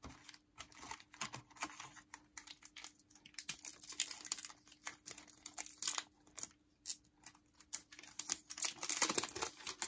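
Foil wrapper of a Topps Chrome trading card pack crinkling and tearing as it is ripped open by hand, in irregular crackles, loudest about four seconds in and again near the end.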